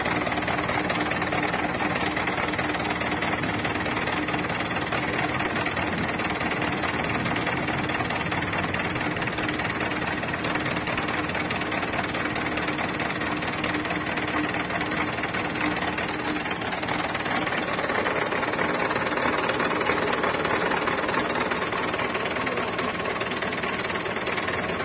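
Mitsubishi Canter HD 125 dump truck's four-cylinder diesel engine idling steadily. The steady idle is one the seller takes as a sign that the engine is still in very good shape.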